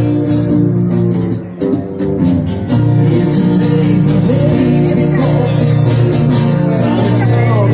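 Live guitar music played through a PA speaker, getting louder about three seconds in, with a singing voice carrying a wavering melody over it from about halfway.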